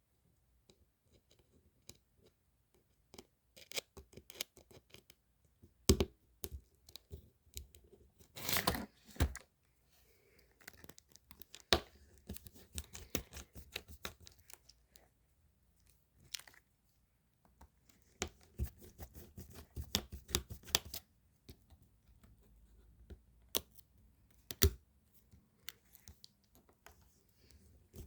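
Close-up handling of a phone and small parts during repair work: irregular sharp clicks and taps, a few much louder than the rest, with softer scratchy rustling in between.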